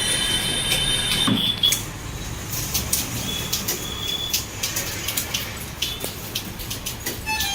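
Computer keyboard keystrokes: an irregular run of short key clicks, about three a second, over a steady background hiss.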